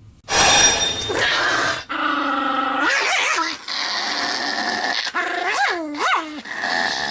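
A Pomeranian sneezes once, loudly, then makes a run of drawn-out pitched vocal sounds, some with quick upward swoops of pitch.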